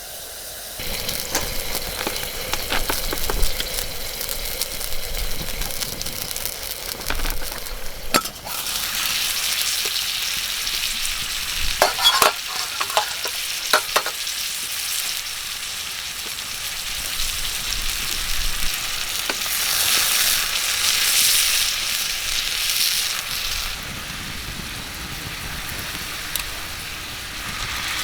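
Wood fire burning in a mesh fire pit, crackling and hissing steadily, with a cluster of sharp pops about halfway through.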